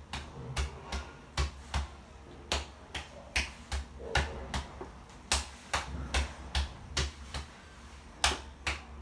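Chest percussion (clapping): cupped hands patting rhythmically on a patient's back to loosen chest phlegm, about two or three pats a second in short runs with brief pauses.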